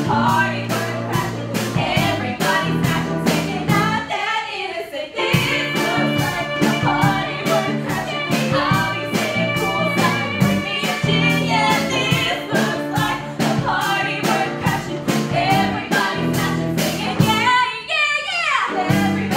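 Upbeat musical-theatre song: women singing over a band with a steady beat, including some long held notes.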